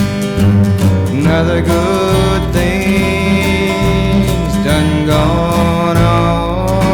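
Country band music: guitars and bass playing the song, with gliding melodic lines over a steady bass.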